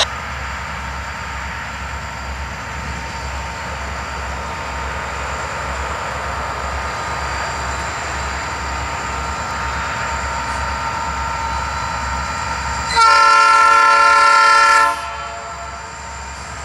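Diesel locomotives of an intermodal freight train, a Canadian Pacific SD60 leading an IC&E SD40-2, approaching with their engines running steadily. Near the end the lead locomotive sounds one long air-horn blast of about two seconds, the loudest sound here.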